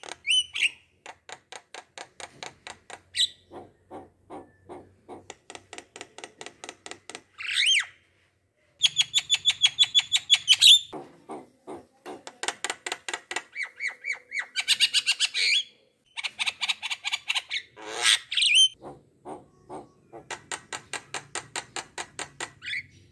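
Bird calls: runs of rapidly repeated short notes alternating with sharp, rising squawks, with two abrupt breaks.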